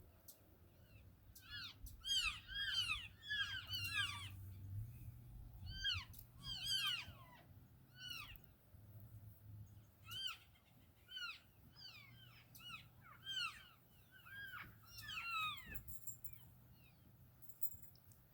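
A large, roughly 800-pound animal making a long series of short, high squeaky-toy-like calls, each rising then falling in pitch. The calls come in bunches of several, with short gaps between them.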